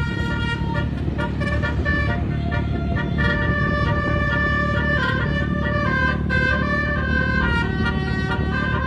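Basuri 'telolet' musical bus horn playing a tune: several tones sound together and step from note to note, over a steady low engine rumble.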